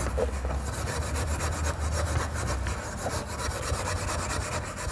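Steel wire wool scrubbed back and forth along a copper pipe in quick repeated strokes, scouring off dirt and grime to bare copper so the earth bonding clamp makes a good connection.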